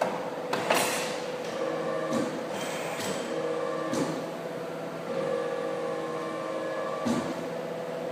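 CNC pipe-bending machine at work: a steady motor hum whose tones shift as its drives start and stop, with several clunks and clicks along the way.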